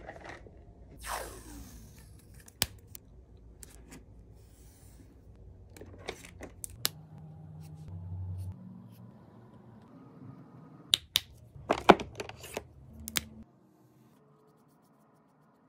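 Copic Sketch markers being handled, with sharp plastic clicks as the caps are pulled off and pushed back on. The clicks come singly and then in a quick cluster near the end.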